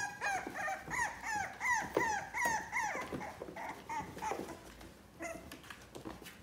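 Puppy yipping: a quick run of short, high-pitched calls, each falling in pitch, about two a second, growing fainter and sparser after about three seconds.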